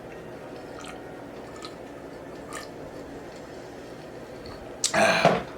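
Close-miked mouth chewing on a BBQ rib sandwich, with a few small wet clicks over a steady low background. There is a brief, much louder noisy sound near the end.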